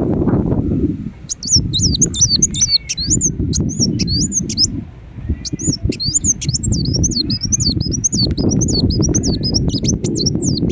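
Ruby-cheeked sunbird singing a fast, unbroken run of high, swooping chirps. Underneath is a low rumbling noise that drops out briefly about a second in and again near the middle.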